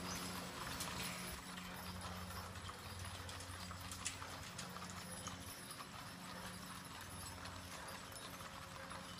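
Mules' hooves clip-clopping on a paved road at a walk as a mule-drawn covered wagon and riders pass, with one sharper clack about four seconds in. A steady low hum runs underneath.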